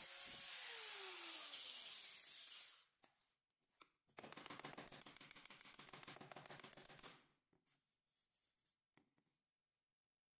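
Small electric sanding tool with a disc sanding the hardened styrofoam patch on a PVC pipe, stopping about two and a half seconds in, its motor note falling as it winds down. After a pause, a hand-held blade scrapes quickly back and forth over the pipe for about three seconds, followed by a few light ticks.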